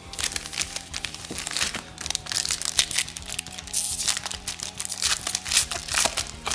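Foil trading-card pack wrappers crinkling and tearing as they are ripped open, a dense run of quick crackles, over faint background music.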